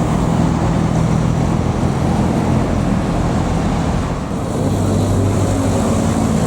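Diesel engine of a passing bus running under load on an uphill climb, with a lower engine note joining about four and a half seconds in.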